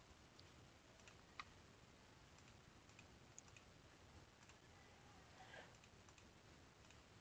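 Near silence with a few faint, scattered computer mouse clicks, the loudest a little over a second in.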